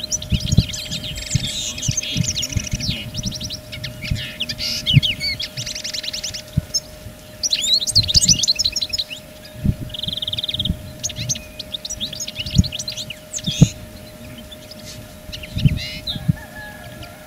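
Small songbirds singing and twittering, several at once, in quick chirps and trills with a short buzzing trill about ten seconds in. Dull low thumps come and go underneath.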